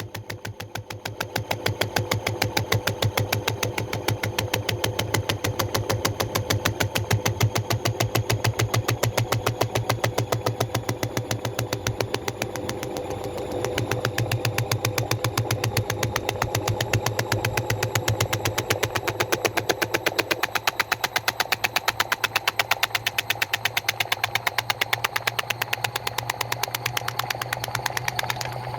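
Washing machine on its spin cycle: a steady motor hum with a fast, even pulsing beat from the turning drum. The tone shifts about twenty seconds in.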